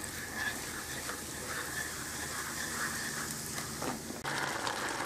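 Ground cumin and coriander sizzling in hot canola oil in a frying pan as they are stirred with a wooden spoon. The sizzle is a steady crackle that suddenly gets louder about four seconds in.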